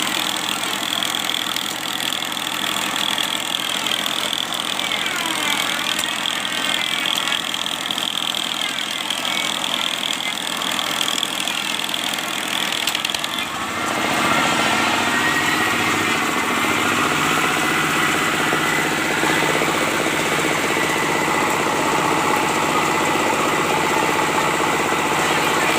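Electric grinder running and grinding a steel blade. The pitch wavers as the load varies, and about 14 seconds in the sound shifts lower and gets a little louder.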